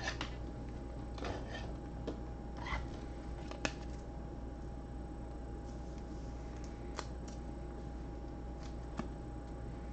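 Quiet room tone: a steady low electrical hum with a faint high whine, and a few faint scattered clicks and rustles of small handling noises.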